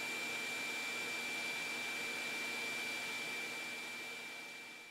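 Shop vacuum running through a wide 4-inch hose, a steady rush of air with a high steady whine. The wide hose slows the air too much to pick up the sawdust well. The sound fades away near the end.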